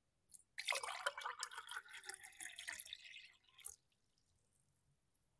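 Water being poured into an empty glass tumbler. The splashing starts about half a second in, runs for about three seconds and stops.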